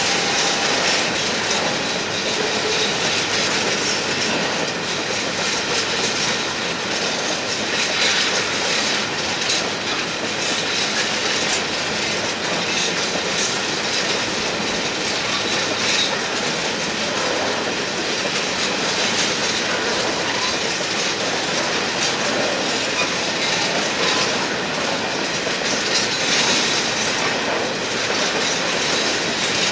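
Empty coal hopper wagons rolling past on a curve: steady wheel-on-rail rumble with repeated clicking as the wheels cross the rail joints, and a faint high wheel squeal.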